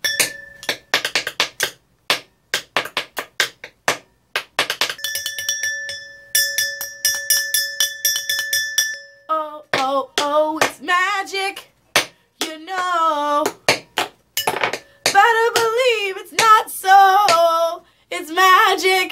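Drumsticks tapped in a quick, uneven beat, with a steady high tone held for about four seconds midway. About halfway through, a woman starts singing over the tapping.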